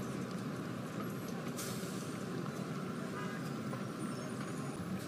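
Steady rumble of road traffic, an even background hum with no single passing vehicle standing out.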